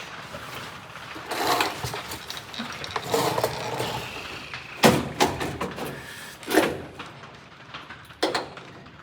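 Metal parts being worked inside a truck door: scraping and rubbing, then three sharp clunks a second or two apart.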